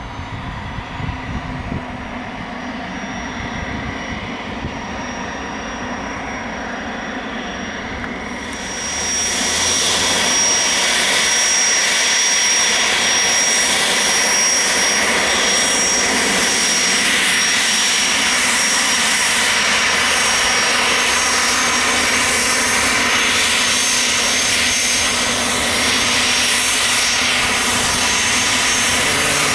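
Gulfstream G280 business jet's twin Honeywell HTF7250G turbofan engines running with a high steady whine, then growing suddenly much louder about eight seconds in as power comes up for takeoff, and holding at a loud, steady rush to the end.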